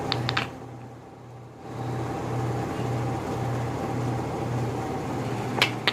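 Microwave oven running: a steady hum that pulses evenly, with sharp clicks near the start and one near the end.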